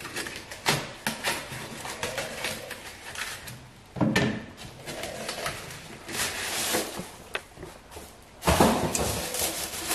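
A cardboard box being opened and unpacked by hand: cardboard scraping and rubbing, with scattered clicks and knocks. There is a loud bump about four seconds in, and a burst of crinkling from a plastic-wrapped part near the end.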